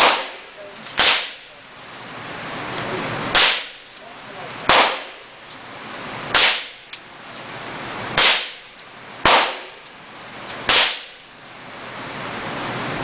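Gunshots at a shooting range: seven sharp shots spaced irregularly one to two seconds apart, the background level dropping after each shot and swelling back before the next.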